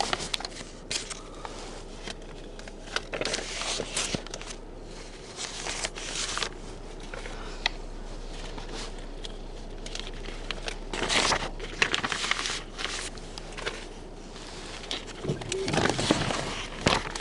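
Newsprint pages rustling and crinkling as newspapers are handled and put together, irregular and papery, with louder stretches about eleven and sixteen seconds in.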